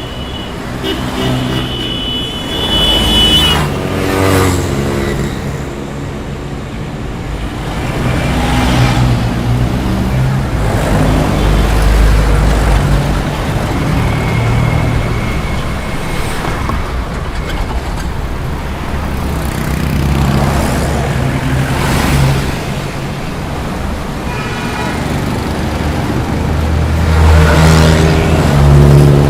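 Roadside city traffic: cars and other motor vehicles pass one after another, each engine swelling and fading as it goes by. A horn sounds in the first few seconds.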